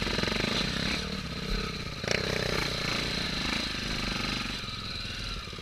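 Single-cylinder four-stroke trail motorcycle engines, Honda XR250 Tornado–based, running steadily as the bikes climb a grassy slope, with a sharp knock about two seconds in.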